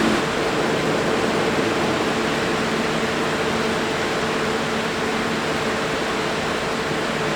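Jet aircraft engines running steadily: a loud even rush with a constant low hum underneath.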